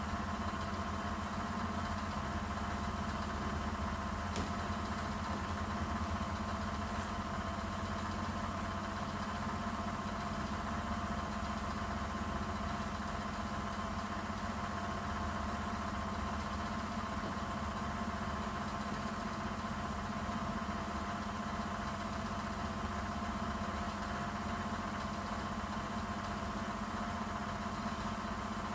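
A running machine's steady hum: an even drone with several constant tones that holds unchanged throughout.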